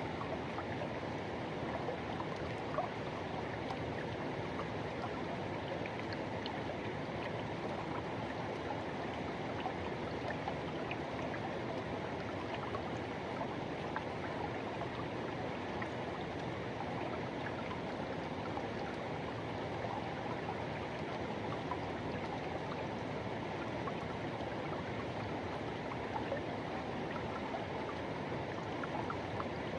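Forest river rushing over rocks: a steady wash of flowing water with faint small splashes.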